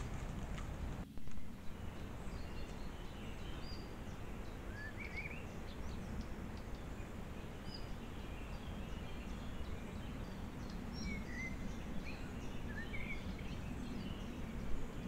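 Forest ambience: a steady low noise bed with scattered short, high bird chirps and calls. A brief louder burst of noise comes about a second in.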